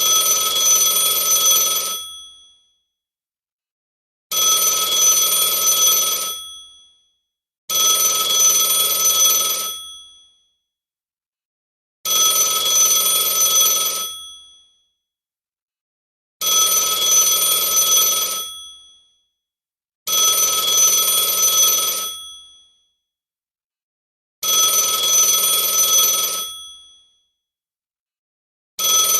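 Telephone ringing: a run of eight rings, each lasting about two seconds, separated by short, uneven pauses.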